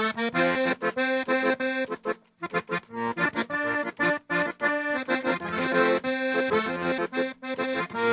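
Accordion music: a zydeco tune played in short phrases with brief breaks between them.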